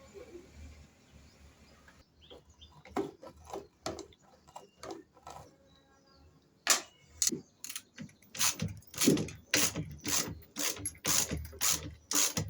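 A quick series of sharp mechanical clicks and knocks, sparse at first and coming thick and loud in the second half.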